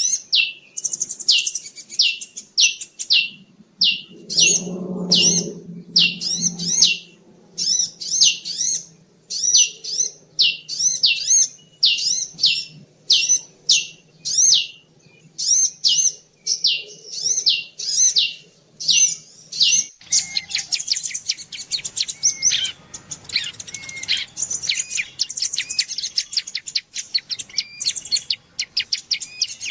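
Bird-lure recording of small songbird calls, Javan ciblek (bar-winged prinia) and kolibri (sunbird), used to draw small birds in: sharp high chirps repeated about twice a second, changing about two-thirds of the way through to a denser, faster twittering.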